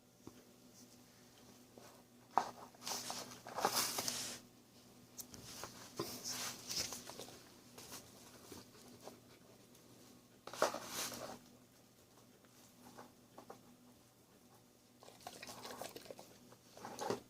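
Intermittent rustling and handling noises in a quiet room, coming in short bursts of about a second, with a few sharp taps between them.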